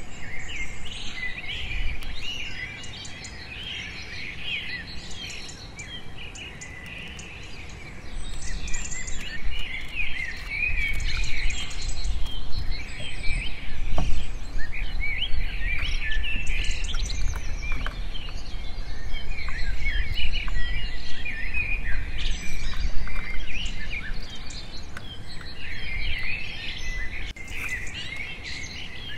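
Many birds chirping and calling at once, a dense chorus of short chirps, over a low rumble.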